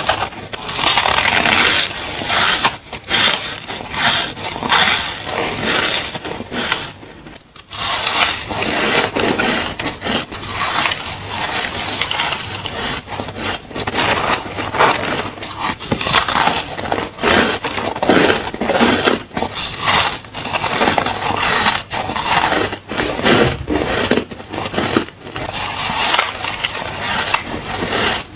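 A person biting and chewing ice cubes close to the microphone: a dense, continuous run of loud, crisp crunches, with a brief pause about seven seconds in.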